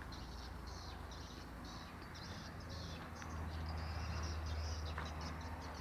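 Faint outdoor ambience of small animals chirping in short repeated bursts, over a low rumble on the microphone that swells about three seconds in.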